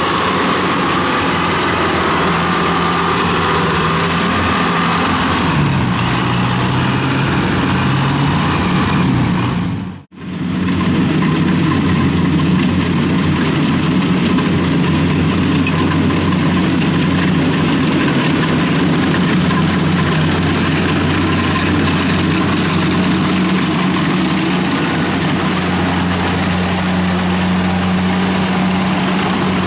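Engines of rice-harvest machinery running continuously. First comes a tracked paddy carrier's engine, whose pitch shifts a little. After a brief cut to silence about ten seconds in, a Kubota DC-70 combine harvester's diesel engine runs steadily.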